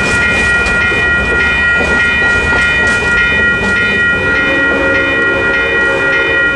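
Railroad grade-crossing warning bell ringing steadily as the last passenger car of a train rolls over the crossing, its wheels clicking over the rail joints for the first few seconds before the clatter stops.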